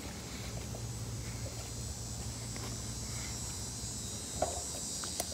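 Steady high-pitched drone of insects calling in the trees, with a low steady rumble underneath and a couple of faint knocks near the end.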